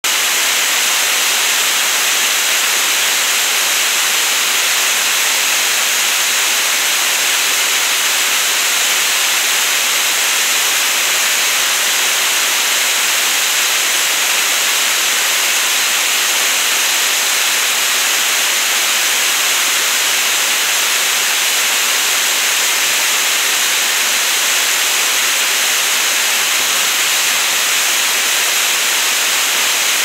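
Meltwater stream cascading over rocks: a loud, steady rushing hiss of white water.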